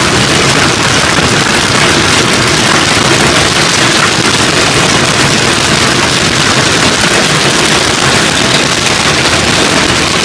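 Heavy hail pelting down: a loud, steady clatter of countless small impacts with no let-up.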